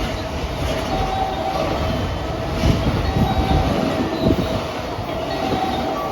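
Freight train passing through at high speed, its wagons rumbling steadily, with a quick run of wheel clacks over rail joints about three to four seconds in.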